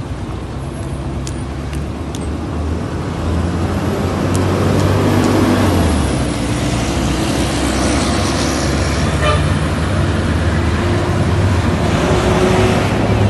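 Road traffic with bus engines running close by, a steady low engine hum that grows louder about four seconds in.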